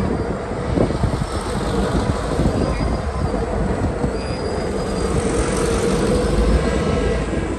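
Two BNSF diesel locomotives passing close by with their engines running, followed by container-laden freight cars rolling past on the rails, a steady rumble with faint wheel squeal.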